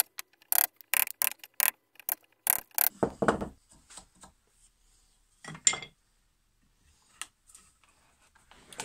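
Wood chisel cutting into the end grain of a timber leg to clean out a dovetail socket: a quick run of short, sharp cuts, about two or three a second for the first three seconds or so, then a single louder knock and a few scattered clicks.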